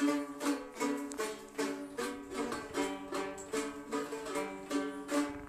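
Plucked string instrument playing a lively folk melody, with sharp plucked notes about two to three a second.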